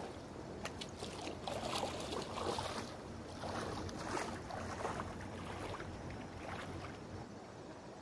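River water splashing and sloshing around legs wading through the shallows, in uneven bursts with a few sharp clicks, growing quieter near the end.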